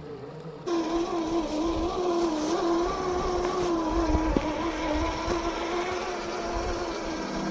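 Electric motor and gearbox of an Axial SCX10 II scale RC crawler whining as it drives, at a steady pitch that wavers slightly with throttle. It starts abruptly about a second in.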